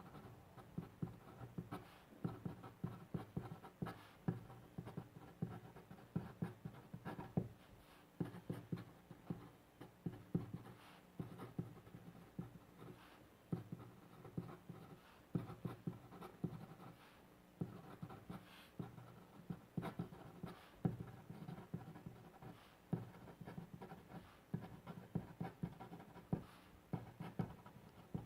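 Pen writing on paper: a continuous, irregular run of short scratching strokes as characters are written by hand.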